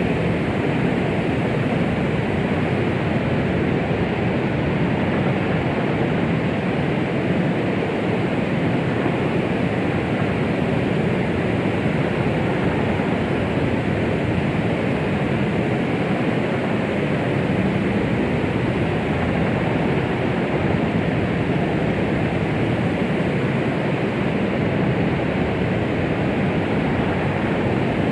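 Steady white-noise hiss, weighted toward the low and middle pitches, with no pulse or change: a 'sound of the womb' noise track made to soothe a baby.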